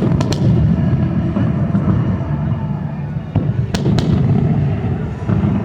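Fireworks going off: a few sharp cracks right at the start and another cluster about three and a half to four seconds in, over a continuous low rumble of booms.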